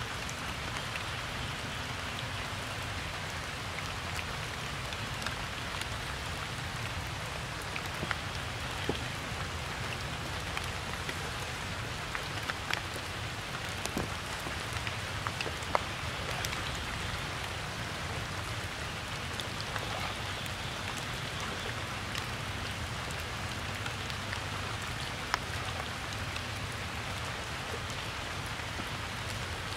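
Steady rain falling on wet ground and stones, with scattered sharp drop ticks throughout.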